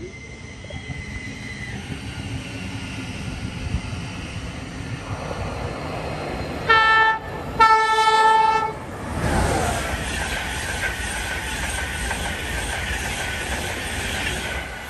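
Express train sounding its horn twice as it approaches, a short blast then a longer one, then passing through the station at speed with a steady rush of wheels on rail.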